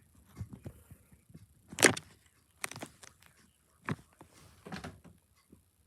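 A few separate knocks and clicks, as of objects being handled and set down, the loudest about two seconds in.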